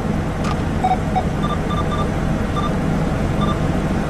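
Short electronic key beeps from a President JFK II CB radio as its menu buttons are pressed to step the anti-VOX level down: two lower beeps about a second in, then about five identical higher beeps spread over the next two seconds. Under them runs the steady low rumble of the truck cab.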